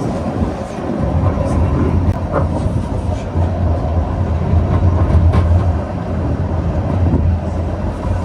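Train running on the rails: a steady, loud low rumble with a few faint clicks.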